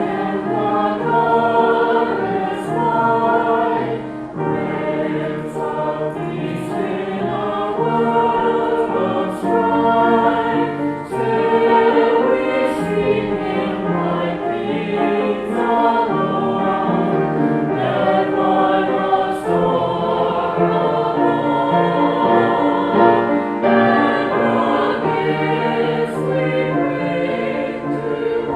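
A choir singing a hymn with sustained chords that change about once a second.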